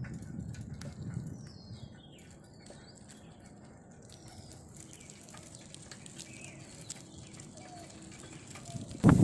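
Scattered faint bird chirps over low wind rumble, with a sudden loud gust of wind hitting the microphone at the very end.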